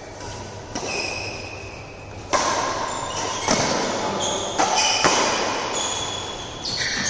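Badminton rackets hitting a shuttlecock in a fast doubles rally: about six sharp hits, the loudest about two and five seconds in, echoing in a large hall. Short high squeaks from shoes on the court mat sound between the hits.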